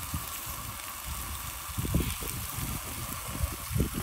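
Food sizzling in a large aluminium cooking pot as chopped tomatoes are tipped in and stirred with a metal ladle, a steady hiss with a few dull knocks about two seconds in and near the end.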